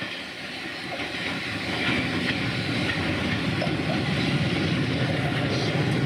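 Red Bagnall 0-4-0 saddle tank steam locomotive working a train of coaches past on the rails. Steam hisses from its open cylinder drain cocks. It grows louder about two seconds in as it comes close.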